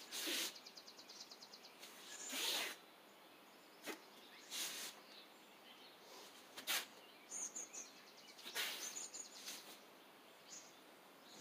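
Brief whooshing bursts every couple of seconds from the quick strikes and blocks of a karate kata performed at mid speed. Faint high bird chirps come in between.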